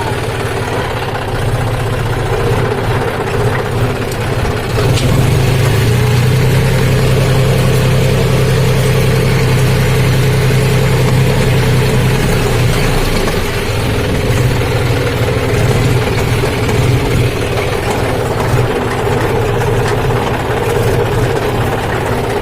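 John Deere tractor engine running steadily at idle, its low hum growing louder about five seconds in and then holding even.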